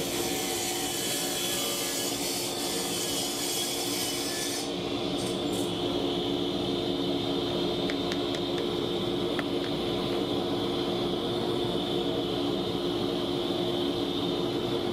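A one-horsepower radial arm saw crosscutting a wide hardwood board, fed slowly because the motor is low-powered. The hissing cutting noise stops abruptly about five seconds in, and the motor goes on running with a steady hum, with a few light ticks.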